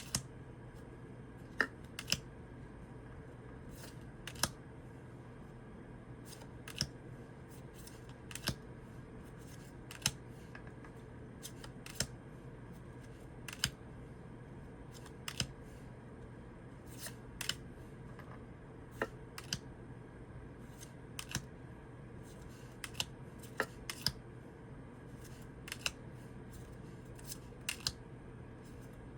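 Crisp clicks of tarot cards being handled and turned over one at a time, about one every one to two seconds, over a faint steady hum.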